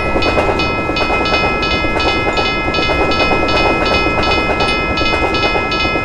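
Railroad crossing bell ringing in a steady rhythm, about two and a half strikes a second, over the rumble and clatter of a freight train passing over the crossing.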